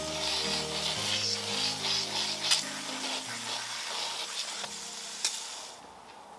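Tap water running and splashing over an ostrich egg as it is washed, a steady hiss that stops near the end, with a couple of faint knocks. Soft background music plays underneath.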